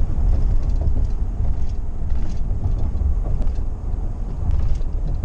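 Steady low road rumble and engine noise heard inside a moving car's cabin.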